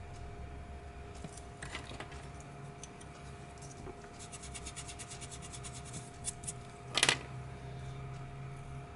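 Pencil eraser rubbed quickly back and forth on paper, a rapid run of scratchy strokes, then a pencil clatters down onto the wooden desk about seven seconds in. A few light clicks of pencils being handled come before, over a faint steady hum.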